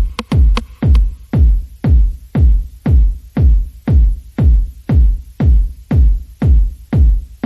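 Background electronic music with a steady drum-machine beat: a deep kick drum on every beat, about two a second, each one dropping in pitch.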